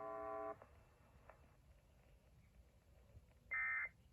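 Emergency Alert System broadcast: a steady electrical hum cuts off about half a second in, and after a quiet gap a short, shrill data burst sounds near the end. This is one of the end-of-message data bursts that closes the alert.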